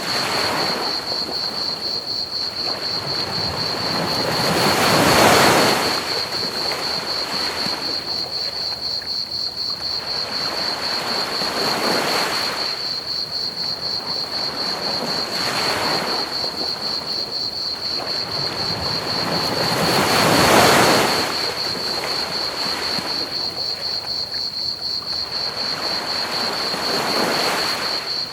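Ocean waves breaking on a beach in slow swells, the two biggest about five and twenty seconds in, over a steady, rapidly pulsing high-pitched cricket chorus and a soft constant hiss of pink noise.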